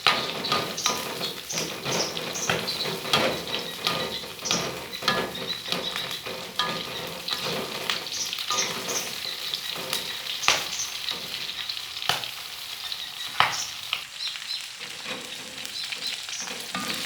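Shallots, garlic and chilies sizzling in hot oil in a pan while a spatula stirs them, with irregular clicks and scrapes of the spatula against the pan. The spice base is being fried until it dries out.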